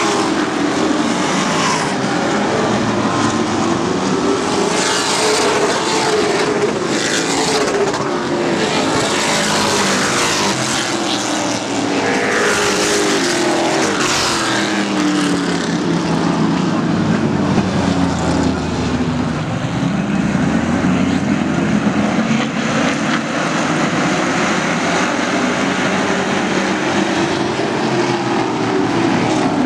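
A pack of Pro Truck race trucks racing, their engines running hard together, the pitch rising and falling as they pass and go round the turns. About two-thirds of the way through the pitch sinks lower and rises again.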